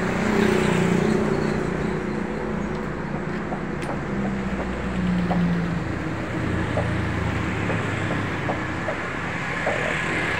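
Road traffic going past: vehicle engines running over a steady road noise, one hum coming and going after another. A few faint light ticks sound in the second half.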